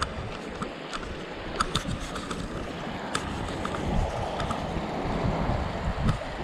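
Bicycle rolling over a rocky dirt trail, tyres crunching on gravel with scattered sharp clicks and rattles, and wind on the microphone. A creek runs alongside, its hiss strongest from about three to six seconds in.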